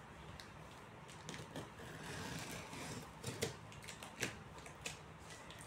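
A cardboard shipping box being handled and worked at its packing tape with a small hand tool. There is rustling and scraping of cardboard, then three sharp taps or clicks in the second half.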